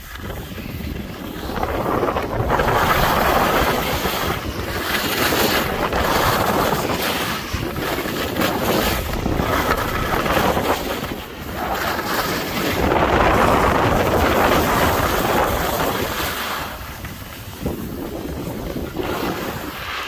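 Wind rushing over the microphone mixed with the scrape and hiss of skis or a snowboard sliding over packed snow during a downhill run, swelling and fading every few seconds.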